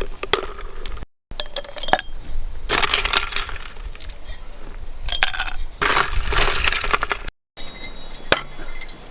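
Cutlery and dishes clinking, with many sharp clicks and knocks.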